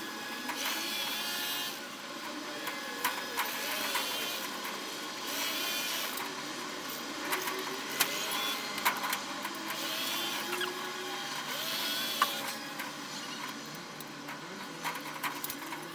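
Renovation work: a power tool whirring in short bursts of a second or so every few seconds, with a few sharp knocks in between.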